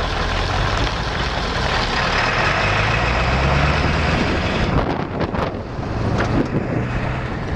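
Vehicle engine running with tyre noise on a gravel road, heard from inside the cab. The engine note rises a little around the middle and eases off, with a few knocks in the second half.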